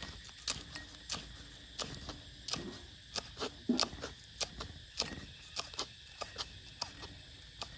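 Large kitchen knife chopping green herb leaves on a wooden chopping board: a sharp knock about twice a second as the blade strikes the board.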